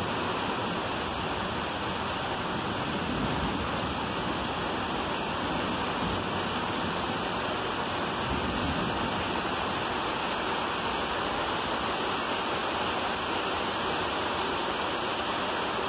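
Heavy rain pouring down in a thunderstorm, a steady even hiss, with water running off the roof edge.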